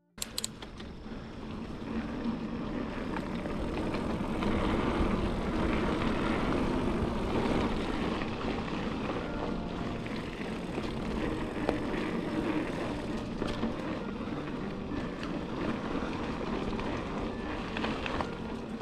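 Mountain bike rolling fast down a dirt singletrack: a steady rush of tyre and wind noise with rattling from the bike. It starts suddenly after a moment of silence and builds over the first few seconds.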